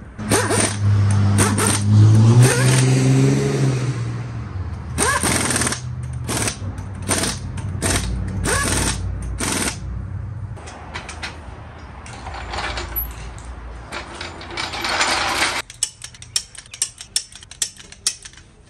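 Pneumatic impact wrenches running on the wheels' lug nuts: a rising whine as one spins up, then bursts of rattling hammering. Near the end a quick run of sharp clicks.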